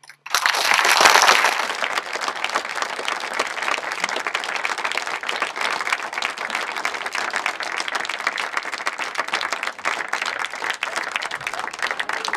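Audience applauding: a sudden outbreak of clapping just after the start, loudest for the first couple of seconds, then steady dense clapping.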